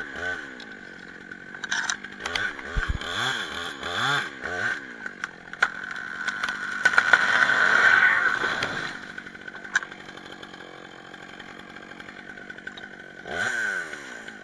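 Stihl 661 two-stroke chainsaw running with a steady tone, its throttle blipped several times so the revs rise and fall, near the start and again near the end. In the middle, a louder crackling rush with sharp cracks swells and fades over a few seconds.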